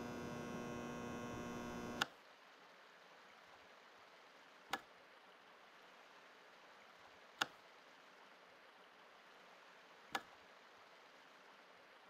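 A buzzing electrical hum for about two seconds, cut off by a sharp click. Then a faint steady hiss, broken by a sharp click about every two and a half seconds, three more times.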